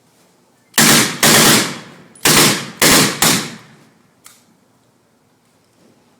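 M1A1 Thompson submachine gun firing .45 caliber rounds: five sharp shots in two quick groups, two then three, each trailing off, with a faint click about a second after the last.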